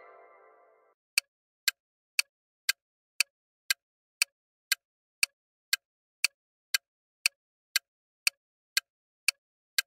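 Quiz countdown timer ticking: short, sharp clock-like ticks, evenly twice a second, starting about a second in. Before the ticks begin, the tail of a chime that marks the answer reveal fades out.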